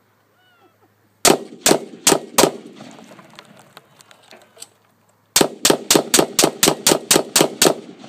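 Gunfire heard from downrange beside the target: four shots about 0.4 s apart, a pause, then a rapid string of about a dozen shots at roughly five a second.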